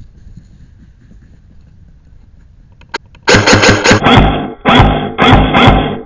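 Quiet background noise, then a click, then from about halfway through loud edited-in music with heavy bass hits that cuts in and out in sections, its treble filtered away to different degrees.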